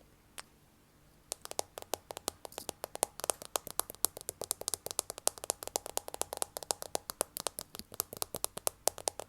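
Fast ASMR tapping: a quick, continuous run of sharp taps, roughly eight to ten a second, starting about a second in.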